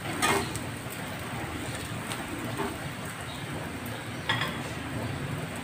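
A metal spatula scrapes and clinks against an iron kadai just after the start, with another short clink about four seconds in. Beneath it is a steady low hiss of a thin egg paratha frying in oil over a gas flame.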